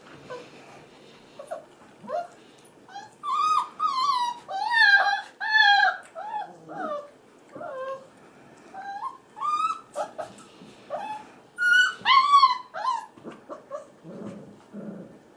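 Five-and-a-half-week-old F1b Goldendoodle puppies whining and crying in a run of high, arching cries. The cries are loudest and most frequent from about three to six seconds in and again around twelve seconds.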